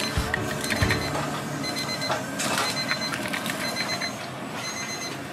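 Kitchen scissors snipping green chili peppers into a plastic chopper cup, a series of short crisp cuts, while a high electronic beep repeats in short dashes in the background.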